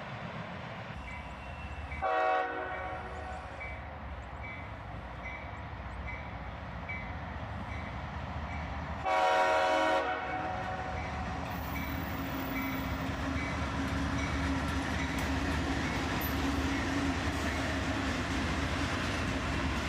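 Locomotive air horn on an approaching freight train led by GE ES40DC locomotives: a short blast about two seconds in and a longer one of about a second near the middle, over a bell-like ding about twice a second. In the second half the locomotives' engine and the train's rumble grow louder as it nears.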